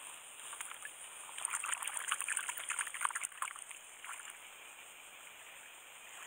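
Water lapping and trickling, with a crackle of small irregular clicks for a couple of seconds starting about a second and a half in.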